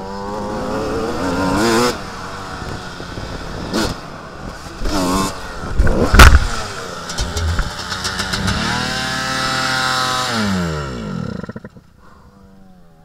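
Two-stroke Suzuki RM motocross bike engine revving, then a loud crash impact about six seconds in as the bike goes down. The engine revs again, winds down and stops about eleven seconds in.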